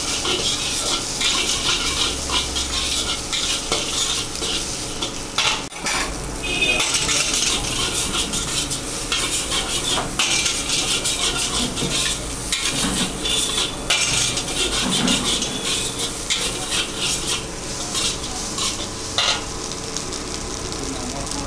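A metal spatula scrapes and clatters against a large wok as chicken, shredded cabbage and rice are stir-fried, over a steady sizzle of frying food, with many quick knocks of the spatula on the pan.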